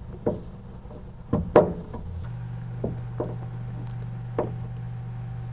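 Sharp metal clicks and taps of a small hand screwdriver working a screw and a little metal hook into a Beetle's body panel, about half a dozen irregular clicks with the loudest about a second and a half in. A low steady hum comes in about two seconds in.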